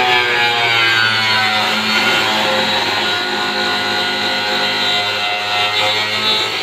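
Handheld electric cutting tool running with its blade in the rim of a blue plastic barrel, cutting the plastic with a steady motor hum whose pitch slides as the load changes.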